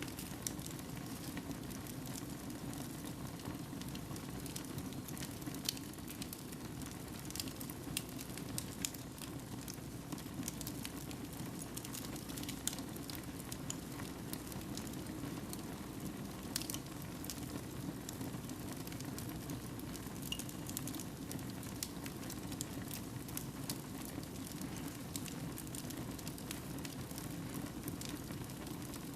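Fire crackling in a fireplace: a steady low noise of burning with irregular sharp crackles and pops scattered throughout.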